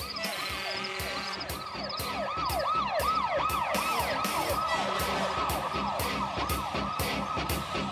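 Siren yelping in fast rising-and-falling sweeps over theme music with a steady beat of about two strokes a second.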